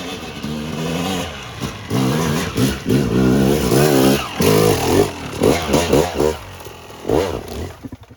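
Dirt bike engine revving hard under load on a steep climb, its pitch rising and falling again and again as the throttle is worked, then dropping away near the end.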